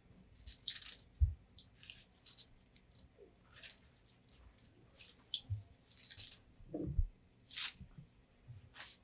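Kitchen scissors snipping green onions, a string of irregular, crisp snips with a few soft thumps, as the cut pieces fall onto a basin of seasoned kimchi.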